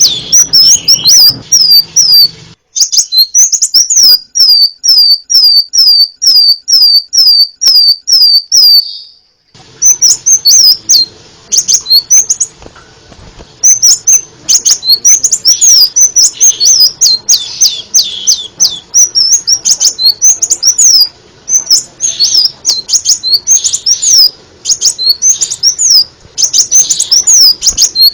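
Crimson sunbird calling with rapid, sharp, high-pitched chirps. From about three to nine seconds in, it gives a clean run of evenly spaced notes, about two a second. After that the chirping turns dense and overlapping.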